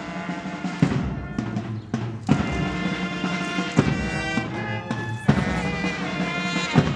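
Slow music of held chords, with a new chord struck about every second and a half.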